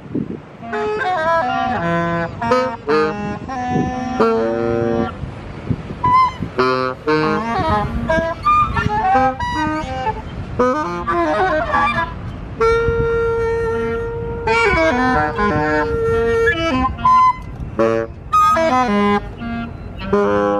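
Saxophones improvising freely together: several reed lines overlap in short, broken phrases, with one long held note about midway.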